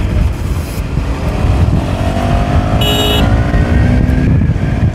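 KTM Duke 250's single-cylinder engine accelerating hard, its pitch rising steadily, dropping at an upshift about three seconds in, then climbing again, over wind rumble on the microphone. A brief high beep sounds at the shift.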